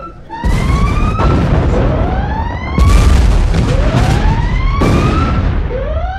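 Explosions booming with a heavy low rumble, four of them, the loudest about three seconds in. Behind them a siren sweeps up in pitch over and over, about every second and a half to two seconds.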